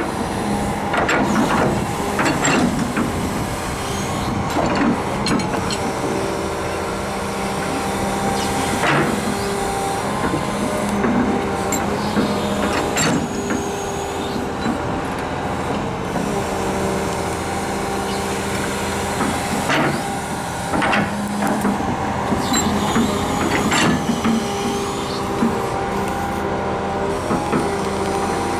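Daewoo S370LC crawler excavator's diesel engine running steadily, with irregular sharp knocks and brief squeaks over it.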